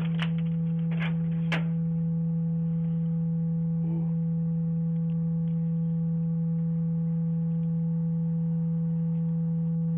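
A steady low tone holding one unchanging pitch, with faint overtones above it and a few sharp clicks in the first second and a half.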